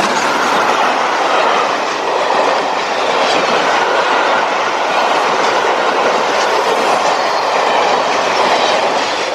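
Rake of railway passenger coaches passing close at speed: a steady rush of wheel and rail noise with occasional faint clicks.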